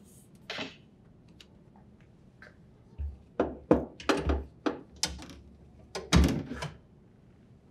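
Refrigerator shelf being lifted, unhooked from its slots and pulled out: a string of knocks and clatters over a few seconds, with the loudest thunk near the end.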